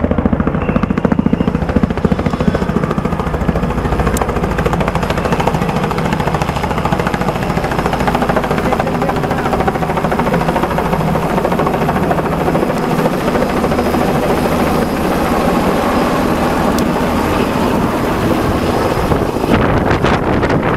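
Small two-bladed helicopter flying low overhead and descending to land, its main rotor beating rapidly under a steady engine and rotor noise.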